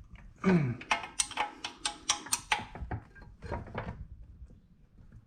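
A ratchet clicking in quick runs, about five clicks a second, as the pump mounting bolts are tightened down into the aluminum pump housing.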